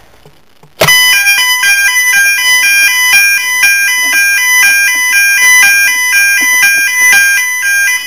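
Fire alarm sounder on a homemade fire alarm panel, set off by pressing a manual call point: a loud electronic alarm tone that starts about a second in, stepping rapidly between high pitches, and cuts off abruptly near the end.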